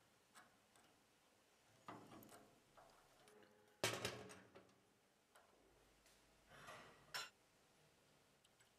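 Small metal clicks and knocks from handling a throttle cable end and its aluminium lever fitting, the sharpest click about four seconds in and another a little after seven seconds.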